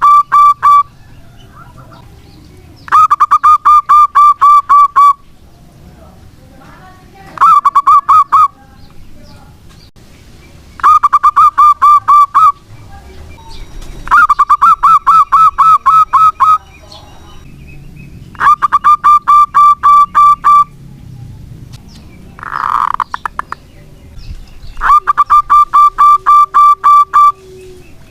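Zebra dove (perkutut) calling in rapid runs of short, evenly spaced coo notes, each run lasting one to two seconds and repeated every three to four seconds. A short harsh burst comes about two-thirds of the way through.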